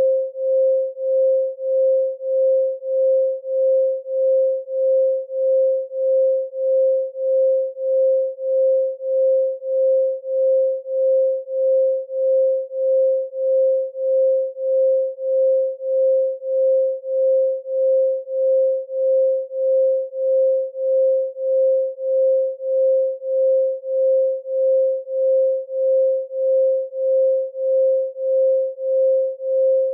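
Electronic pure tone at 528 Hz, the solfeggio 'love frequency', held at one pitch and pulsing in level about one and a half times a second.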